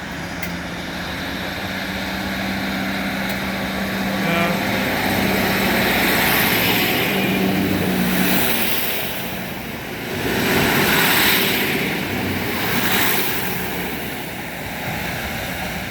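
ScotRail class 156 diesel multiple unit pulling away, its underfloor diesel engines running under load, the noise swelling and easing several times. A steady hum runs under it and stops about eight seconds in.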